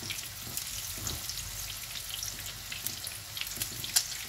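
Gram-flour-battered lamb chops shallow-frying in hot oil in a frying pan, a steady sizzle with small crackles as the batter crisps. A sharp click near the end comes from the metal tongs turning the chops in the pan.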